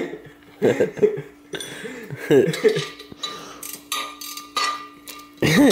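Light metallic clinks and scrapes as the valve stem of an ATV inner tube and its nut are worked against a steel two-piece wheel rim, over a steady low hum.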